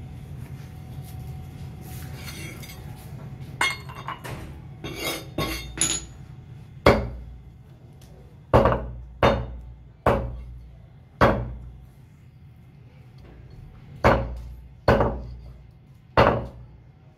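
Butcher's cleaver chopping through a raw chicken onto a wooden log block: a few light knocks, then about eight heavy chops at uneven intervals, each a sharp blow with a deep wooden thud.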